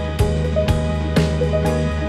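Background music with a steady beat, about two beats a second, over sustained low notes and a melody.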